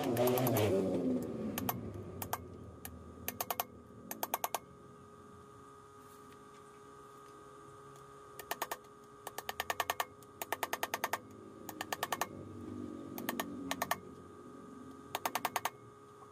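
Ratchet wrench clicking in short bursts of rapid, even clicks with pauses between, as bolts are run in or out on the motorcycle's rear wheel flange hub.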